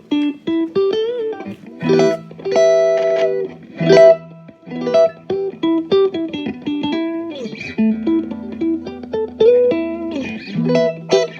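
Electric guitar played through a Fender Blues Junior and Peavey Bandit amp rig: picked single-note lines with a few string bends between held chords.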